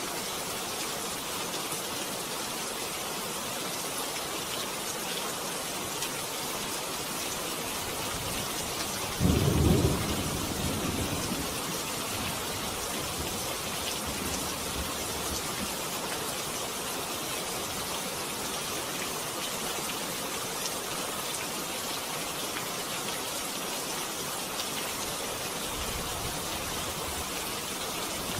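Steady rain hissing, with one low clap of thunder about nine seconds in that rumbles away over a few seconds.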